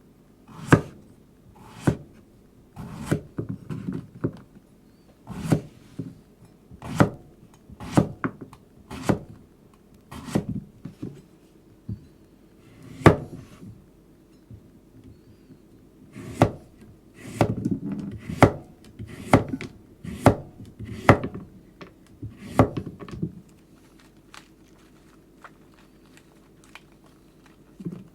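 A series of sharp chopping strokes on wood, irregular and roughly one a second, some followed by lighter taps. They stop a few seconds before the end.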